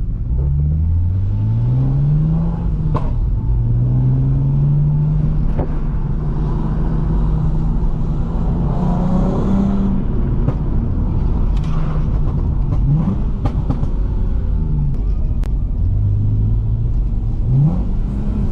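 Lexus IS350's 3.5-litre V6 with an Invidia midpipe and Manzo axle-back exhaust, driven hard: the engine note rises in pitch several times, with a long steady stretch in the middle. Several sharp pops and crackles break through, typical of its custom tune on lift-off, and the owner thinks they are louder because the stock catalytic converters have broken up. Heard through a GoPro's internal microphone, somewhat muffled.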